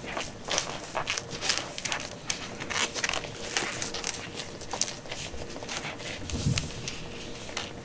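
Close handling noise of a gloved hand stroking and rubbing a newborn kitten on a cloth pad: irregular scratchy rustling and small crackles, several a second, with a soft low bump about six and a half seconds in.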